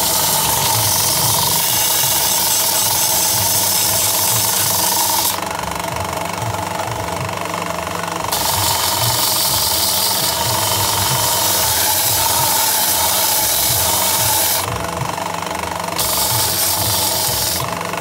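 Ferm belt sander running with a steady motor hum, a wooden box frame pressed onto the moving sanding belt in three long passes. The hiss of abrasive on wood stops twice in the middle and again near the end while the motor keeps running.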